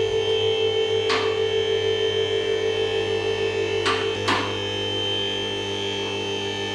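Music: steady sustained tones over a pulsing pattern, with three sharp hits, about a second in and twice near the middle.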